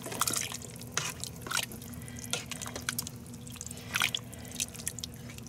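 A metal spoon stirring brothy vegetable soup in a Ninja Foodi cooker pot: liquid sloshing and dripping, with short irregular clicks and scrapes of the spoon against the pot.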